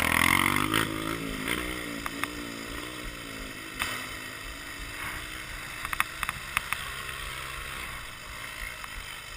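Yamaha Lander 250's single-cylinder four-stroke engine: its pitch falls away over the first couple of seconds, then it runs low and steady, with a few sharp clicks.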